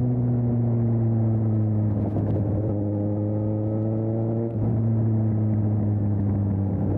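2020 Suzuki GSX-S750's inline-four engine running through an aftermarket Storm exhaust while riding. The pitch eases off, then climbs under acceleration. About four and a half seconds in there is a brief dip and a drop in pitch as it shifts up a gear, and then it pulls on steadily.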